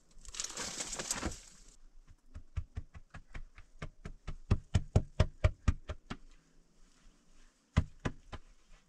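A brief scraping rustle, then a quick run of sharp stone-on-stone taps and knocks, several a second, as stones are worked into a dry-stone wall.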